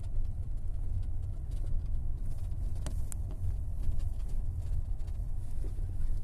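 Steady low rumble of a car driving slowly over rough unpaved ground, heard from inside the cabin. Two brief sharp clicks come about three seconds in.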